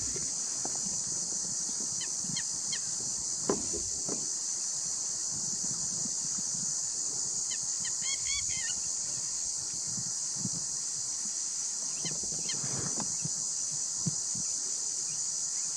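Steady, high-pitched drone of an insect chorus, with a few short bird chirps about two seconds in and again around eight seconds.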